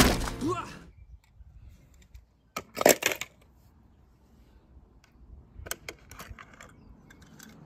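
Small diecast toy cars being handled, a clatter of hard clicks and knocks about three seconds in, then a few lighter clicks and taps.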